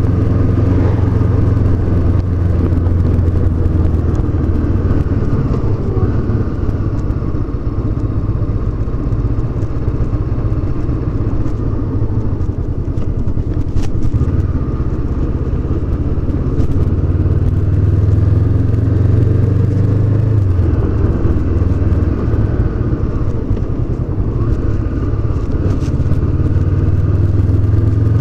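Honda CB500X's 471 cc parallel-twin engine running under way, a steady drone whose pitch rises and falls several times as the throttle is opened and closed, with a short click about halfway through.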